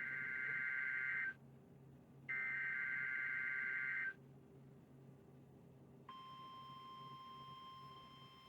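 NOAA Weather Radio Emergency Alert System signalling for a required weekly test. First come two SAME digital header bursts, each a buzzy warbling data chirp just under two seconds long, a second apart. About six seconds in, the steady 1050 Hz weather radio warning alarm tone begins and holds.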